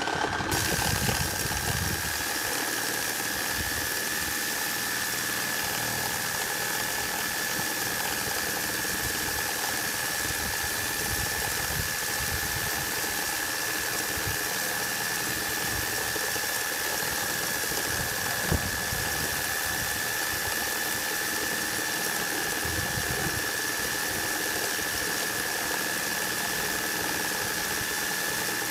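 Makita JR3050T corded reciprocating saw running steadily under load, cutting through a 150 x 200 mm timber beam with a Bosch S 1542 K blade while a 5 kg hanging weight feeds it. A steady high whine sits over the cutting noise, with one brief click about 18 seconds in.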